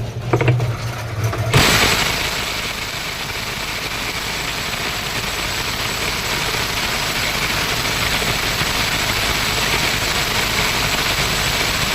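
Electric power tool switching on about a second and a half in and running steadily at full speed, worked against a seized part in a washing machine that its owner says is stuck too tight to come off.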